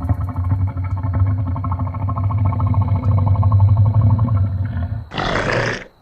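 An animal's low, rapidly pulsing growl lasting about five seconds, followed near the end by a short hissing burst.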